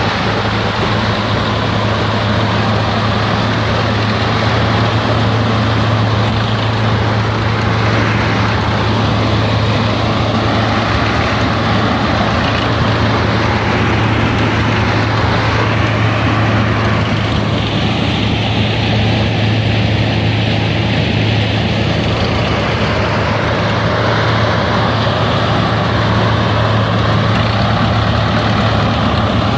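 A steady engine-like drone with a constant low hum, running without a break.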